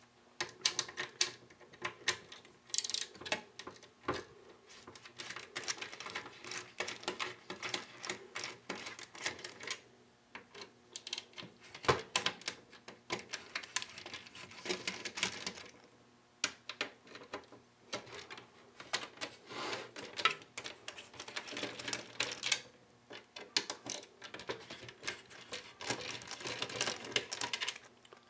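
Small screwdriver turning out the screws of a Landis+Gyr electric meter's plastic faceplate: irregular clicks and light scrapes of metal on plastic, in spells with short pauses.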